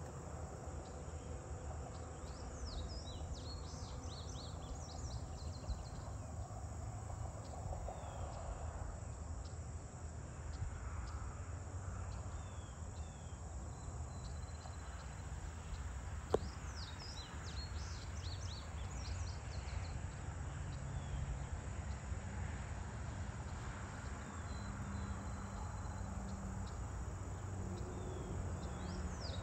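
Evening farm ambience: a steady, high insect chorus with short runs of bird chirps about 3 seconds in, around the middle and near the end, over a steady low rumble. A single brief click comes about halfway through.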